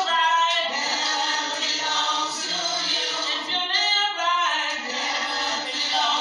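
A choir singing, with voices holding long sung notes.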